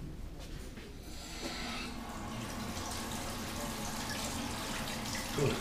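Tap water running steadily into a sink, starting about a second in.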